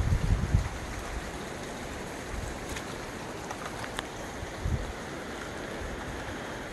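Creek water rushing steadily, with a few low thumps on the microphone in the first half-second and again near the middle.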